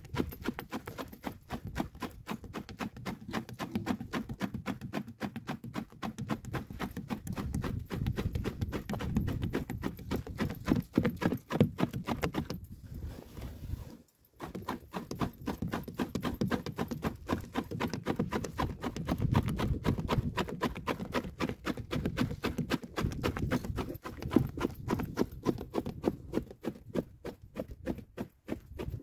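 A bundle of dried twigs beating a milky liquid in a large aluminium pot: rapid, even strokes, several a second, that slosh and knock. The beating stops briefly about halfway through, then goes on.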